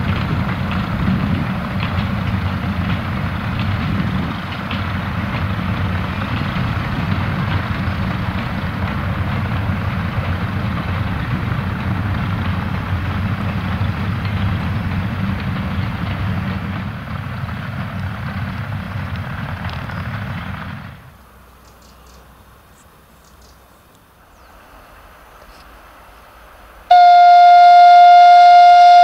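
Heritage diesel-hauled train with vintage carriages running past, a steady rumble and clatter of wheels on rail that cuts off after about twenty seconds. Near the end, the diesel locomotive's horn sounds one loud, steady blast.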